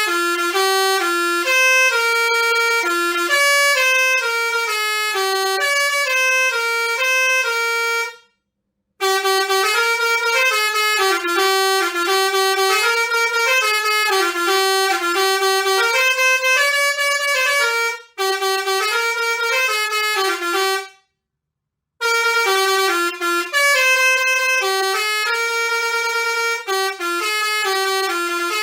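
Basuri six-trumpet musical air horn playing a melody, stepping between a few bright notes in quick runs. It stops briefly about eight seconds in and again about twenty-one seconds in before carrying on.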